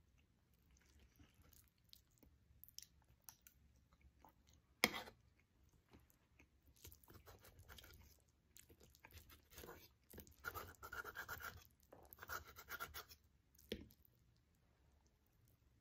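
A person chewing food close to the microphone, with faint scattered mouth clicks and a denser run of chewing from about ten to thirteen seconds in. One sharp tap about five seconds in is the loudest sound.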